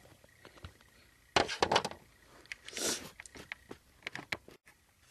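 Plastic Littlest Pet Shop toys being handled and set down: a few light clacks and knocks, the strongest cluster about a second and a half in, with a soft scrape near the middle.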